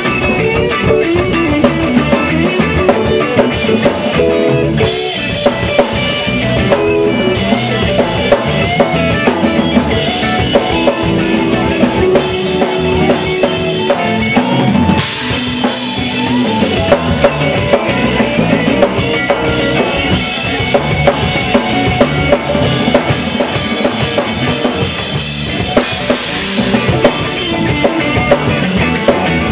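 Live jazz-fusion band playing: a busy drum kit with bass drum and snare hits drives the groove under electric bass, keyboard and electric guitar.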